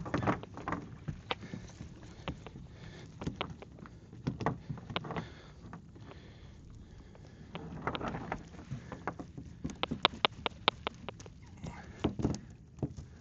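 Cast net being handled and thrown from a small boat: scattered knocks and clatter against the hull, a wash of water noise around eight seconds in, and a quick run of clicks a couple of seconds later.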